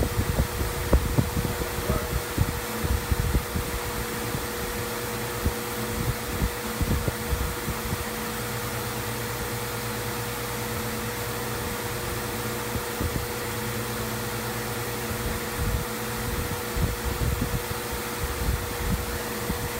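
Joape EcoJet misting fan running with a steady whir and a steady hum. Uneven low buffeting comes through in the first few seconds and again near the end.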